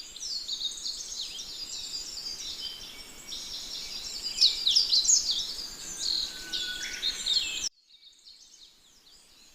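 Birdsong: many short chirps and twitters overlapping in a busy chorus, which cuts off suddenly about three-quarters of the way through, leaving only faint chirping.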